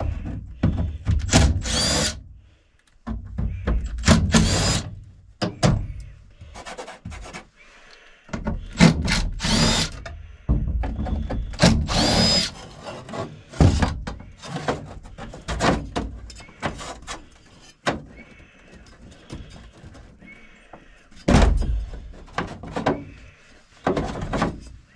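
Hand work on a truck cab's interior as it is stripped out: irregular thunks, knocks and scraping come in bursts, with a few short high squeaks among them.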